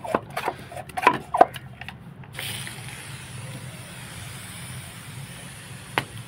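A few clicks and knocks of handling, then a steady hiss of water being sprayed hard onto plant leaves, starting about two and a half seconds in, with a single click near the end.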